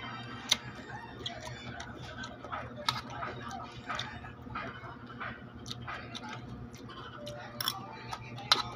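Mouth-close eating of a raw cucumber salad: crisp cucumber slices crunched and chewed, with irregular sharp clicks of a metal spoon against the bowl.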